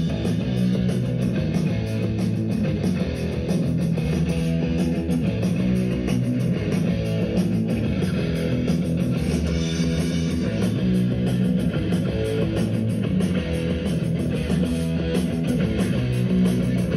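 Rock music with guitar played at full volume through a Xiaomi Mi Portable Bluetooth Speaker 16W, a small stereo speaker with two 8 W drivers.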